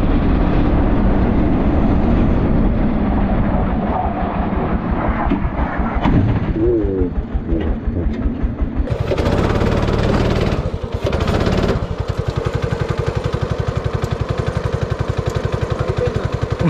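A 16 bhp rental go-kart's engine running with rapid, even firing pulses, heard from the driver's seat. From about twelve seconds in it settles into a steady idle as the kart stops beside another kart.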